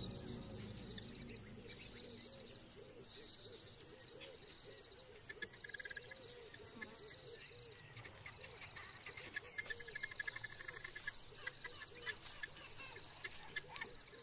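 Quiet bush ambience of bird calls and high insect trills, with irregular soft clicks and crunches growing more frequent from about the middle on as a leopard feeds on an impala carcass.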